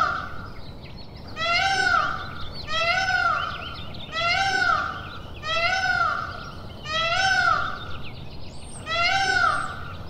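Indian peacock calling: a series of loud, evenly spaced calls, each rising then falling in pitch, about one every second and a half, six in all.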